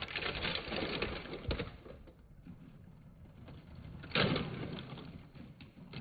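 Lego toy trains crashing: plastic bricks clattering and scattering as one train breaks apart, dying down after about two seconds. About four seconds in comes a second crash, a louder burst of clatter as another Lego train slams into the wreck.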